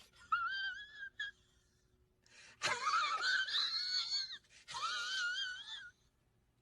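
Three high-pitched, wavering wheezy squeals from a person straining to hold in a cough, the middle one the loudest and longest.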